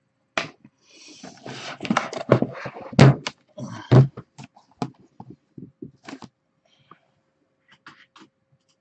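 Shrink-wrapped cardboard boxes of trading cards being lifted, slid and restacked on a desk: the boxes scrape and rustle, then two heavy thumps about three and four seconds in as a box is set down, followed by lighter knocks and taps.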